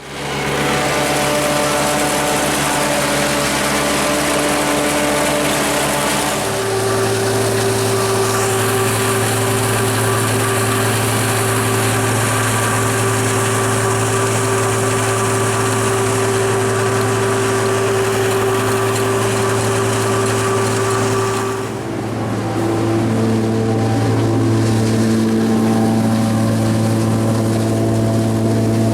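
Old farm tractor engine running a silage cutter (forage harvester) under steady load, a constant drone that shifts to a new pitch about six seconds in, dips briefly around twenty-two seconds in and settles again.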